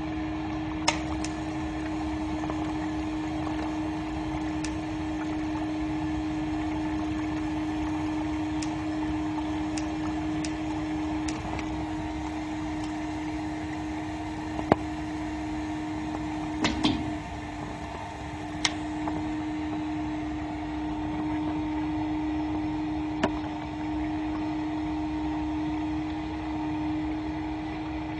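Steady electrical hum of a high-voltage, water-based smoke-absorbing rig running. A faint high whine cuts off with a click about two-thirds of the way through, and a handful of sharp snaps break in at scattered moments.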